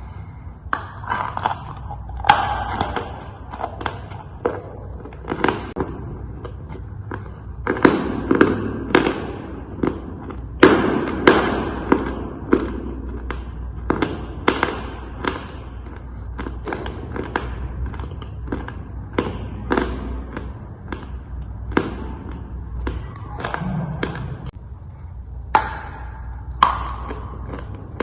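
Dry chalk being crunched close to the microphone: a long series of sharp, crisp crunches, a little more than one a second, some louder than others, over a faint low hum.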